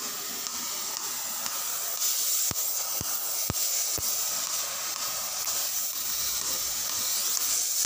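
Gas cutting torch hissing, growing louder about two seconds in, with four short ticks about half a second apart.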